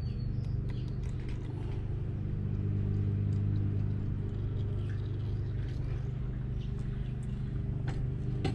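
A steady low machine hum, like an engine or motor running nearby, with a few faint scattered ticks over it.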